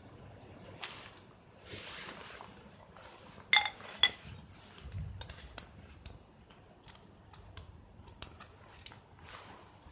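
Coffee gear being handled: metal or ceramic cookware and cups clinking and tapping, with a ringing clink about three and a half seconds in, followed by a run of short, light clicks.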